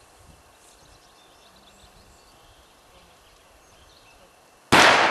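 A single loud gunshot cracks out suddenly near the end and echoes away slowly over about two seconds, after a stretch of quiet open-air background.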